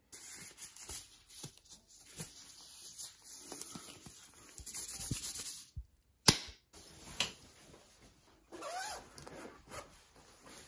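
Rustling and handling noise of plastic gloves and clothing being put on, with scattered clicks and one sharp knock about six seconds in.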